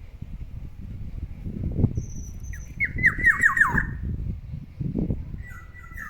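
Black-naped oriole calling: a quick run of about six downward-sliding whistled notes about three seconds in, then a shorter falling phrase near the end, over a low rumble with a couple of dull thuds.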